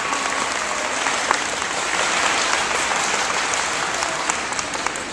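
Audience applauding, dense clapping that slowly thins and softens toward the end; the last note of the dance music dies away about half a second in.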